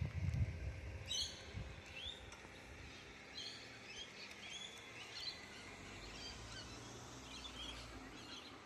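Male koala bellowing its deep mating call, loudest in the first second and a half and then lower and steadier, while small birds chirp high above it.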